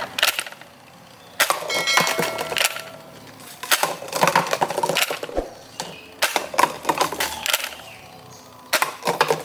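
Hard plastic toy blasters being handled, clattering and knocking in several bursts, with a short metallic ring about two seconds in.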